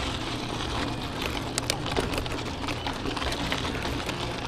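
Mountain bike rolling over packed dirt: steady tyre noise with scattered clicks and rattles from the bike, and wind buffeting the microphone.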